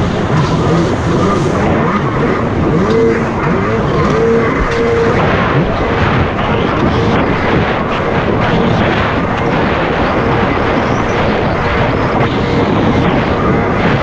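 Jet ski running under way, its engine drone mixed with loud, steady rushing wind and water noise on a GoPro camera's microphone.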